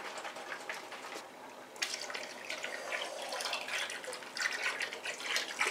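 Liquid fabric dye poured from a bottle in a thin stream into a plastic tub of water, trickling and splashing.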